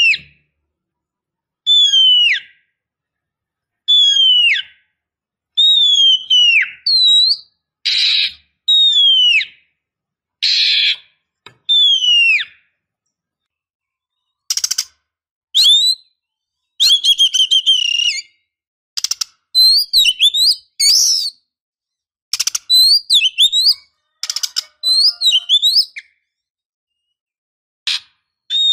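Female Oriental magpie-robin calling: a series of clear whistles sliding down in pitch about every two seconds, with a few harsh buzzy notes among them. From about halfway it breaks into a faster, more varied run of whistles and rasping rattles, then pauses briefly near the end.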